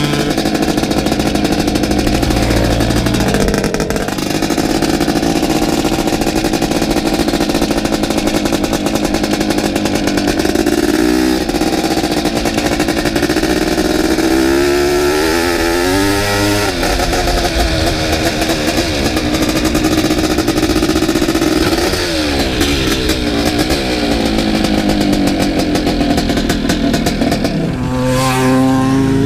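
Dirt bike engine running hard, heard from on board the moving bike, its revs rising and falling several times as the rider works the throttle.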